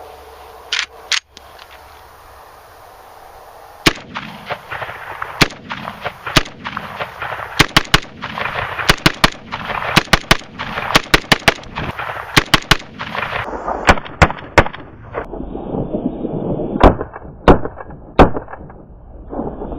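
Century Arms C39 milled AK pistol in 7.62x39mm firing a long string of semi-automatic shots, about two dozen, some spaced a second or more apart and others in quick runs. The first shot comes about four seconds in and the last shortly before the end, with two sharp clicks about a second in before the shooting starts.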